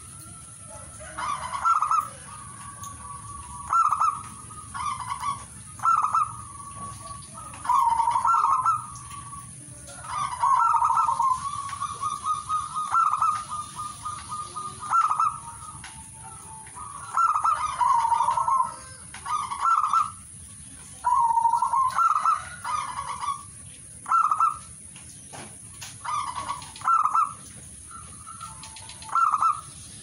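Zebra dove (perkutut) cooing: short, rolling coo phrases repeated every second or two, some drawn out into longer trilled runs.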